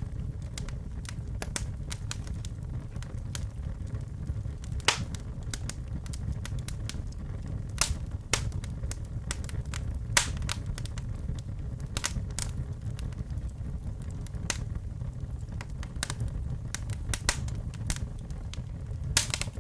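Fire burning in a fireplace: a steady low rumble with frequent sharp crackles and pops, a few of them much louder than the rest.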